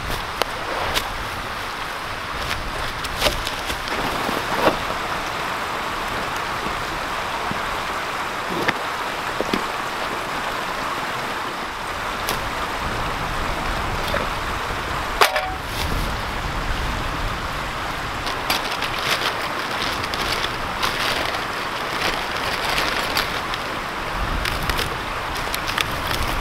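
Steady rushing of a small creek, with scattered knocks and crackles of wood and dry leaves being handled and one sharp knock about halfway through. Near the end come denser crackles as rotten bark is torn from a downed black locust log.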